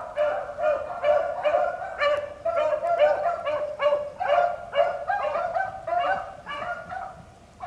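A pack of beagles baying as they run a rabbit, several hounds giving voice in quick overlapping bawls that stop near the end.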